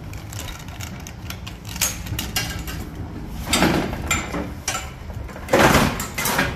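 Steel flatbed shopping trolley rattling and clattering as it is pulled free of the coin lock and rolled over brick paving. There are two louder stretches of clanking, about three and a half and five and a half seconds in.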